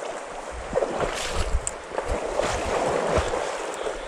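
Water splashing and sloshing in a shallow, stony river, with irregular low bumps of wind on the microphone.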